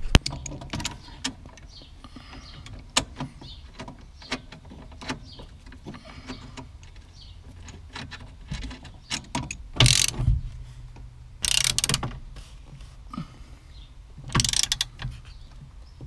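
Hand tools and metal parts clicking and knocking under the dashboard as the steering column is pushed back up and refastened, with three short, louder noisy bursts about ten, eleven and a half and fourteen and a half seconds in.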